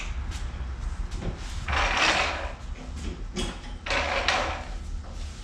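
Two short scraping, sliding sounds about two seconds apart, over a low steady hum.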